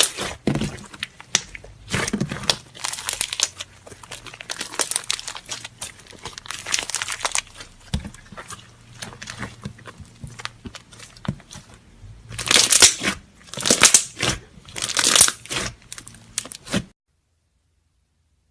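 Slime being squeezed, pressed and stretched by hand, making crackling, crinkling sounds in irregular bursts, with a run of louder crunchy squeezes near the end before the sound cuts off suddenly.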